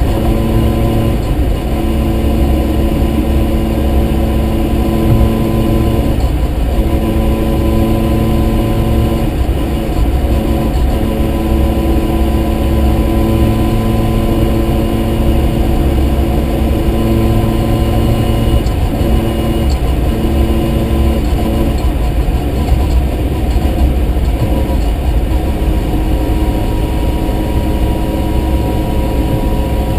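Mazda RX-7's rotary engine running steadily with the car under way: an even engine drone over heavy low road rumble, its pitch shifting slightly a few times.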